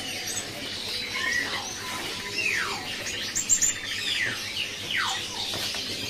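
Caged songbirds calling: scattered chirps and high twitters, with several clear whistles that slide down in pitch, the longest about two and a half seconds in and again about five seconds in.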